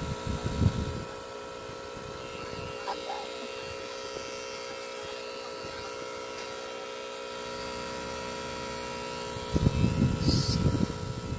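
Electric pen-style tattoo machine running with a steady hum. Louder low rustling and crackling comes at the start and again from about nine and a half seconds in, while the wrapped machine is worked over the skin.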